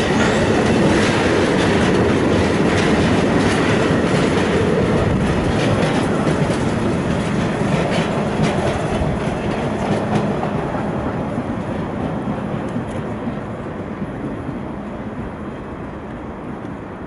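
Freight train of intermodal container wagons rolling past, wheels clattering over the rail joints. The noise fades steadily through the second half as the end of the train moves away.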